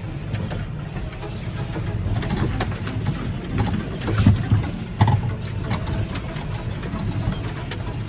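John Deere 6215R tractor engine running steadily under load while ploughing, heard inside the cab as a low drone. A few knocks and rattles come over it, the loudest about four and five seconds in.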